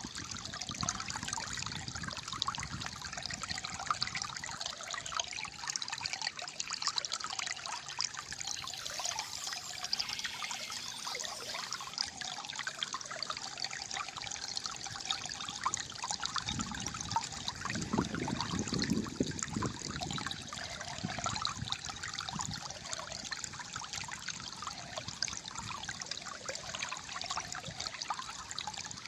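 Flowing water trickling and gurgling steadily, with a deeper, stronger gurgle for a few seconds past the middle.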